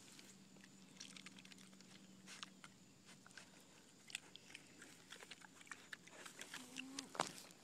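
Pot-bellied piglet chewing dry Cheerios taken from a hand: faint, irregular crunching and smacking, with a louder crunch near the end.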